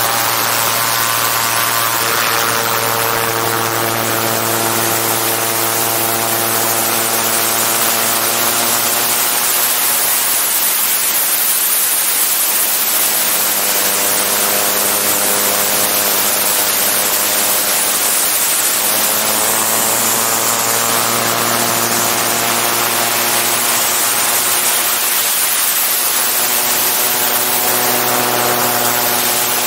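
Autogyro's engine and pusher propeller running in flight, close to an airframe-mounted camera, over a steady rush of airflow. The engine note falls about a third of the way in and climbs again about two-thirds of the way in.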